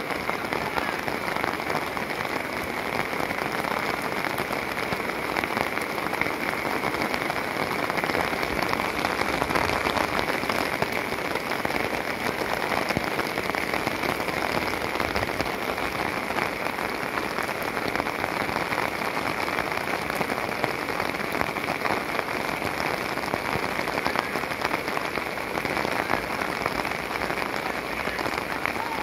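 Heavy rain falling steadily, a dense, even hiss of drops that does not let up.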